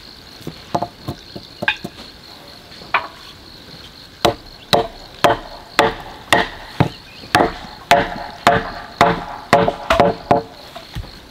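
Chopping blows of a blade striking wood: a few scattered lighter knocks, then from about four seconds in steady strokes about two a second, each with a short hollow ring.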